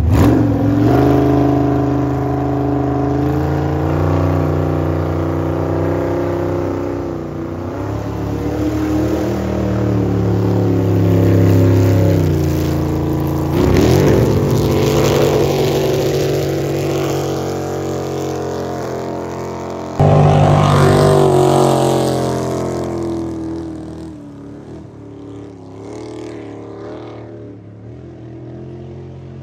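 Racing jet boat engine running hard, revving up and down as it is throttled through a sharp turn, with a rush of spraying water during the turn. About two-thirds of the way in the sound jumps suddenly louder, then fades as the boat speeds away.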